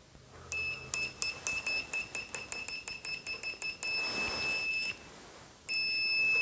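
Analog multimeter's continuity buzzer sounding a high-pitched tone as the test probe tips touch. It stutters with many short crackly drop-outs at first, then holds steady, cuts out briefly near the end and sounds again. The tone shows the new probe leads make contact through the meter.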